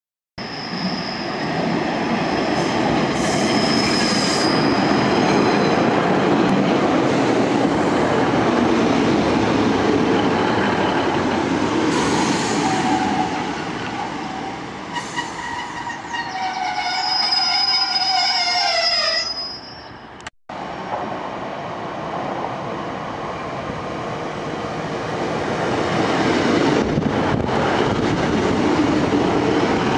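Diesel multiple-unit trains running through the station, with engine rumble and wheel noise on the rails. A high wheel squeal comes about three seconds in, and a whine falls in pitch as a train slows to a stop. After an abrupt break, a train pulls away with its noise building.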